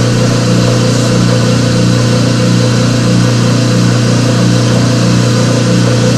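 Electric motor of laboratory mixing equipment running steadily with a strong low hum and a slow, even pulsing in it, stirring the water during the flocculation stage.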